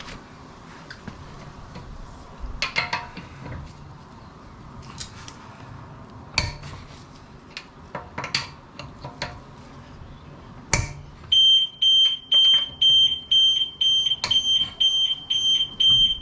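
Scattered clicks and metal clanks of a car being jacked up. About eleven seconds in, the 2013 Audi TT's anti-theft alarm goes off, a loud single-pitched beep repeating about twice a second, set off by jacking up the locked car.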